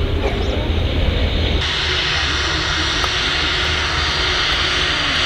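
Jet airliner engines running: a deep rumble from a landing airliner, then an abrupt edit about a second and a half in to a steady jet noise with a strong hiss.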